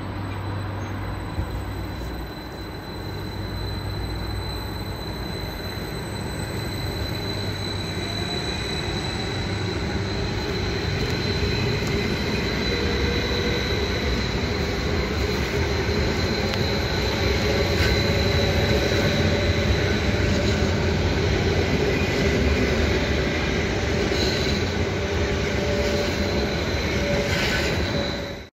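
Vy Stadler FLIRT electric multiple unit pulling away along the platform. There is a high, steady wheel squeal over the running rumble, and a lower whine that rises slowly as it gathers speed.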